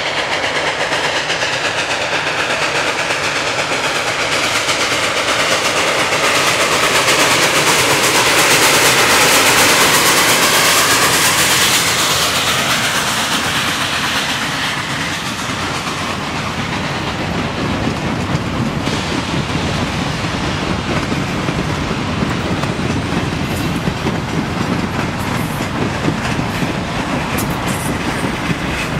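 2-8-0 steam locomotive running past, loudest about a third of the way in. Its sound is followed by a long string of freight hopper cars and a caboose rumbling by, with wheels clicking over the rail joints toward the end.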